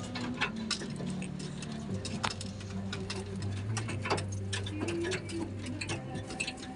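Pigeons cooing low and steadily, mixed with many irregular sharp clicks and taps from the birds on the wire-mesh cage floor and at the grain bowl.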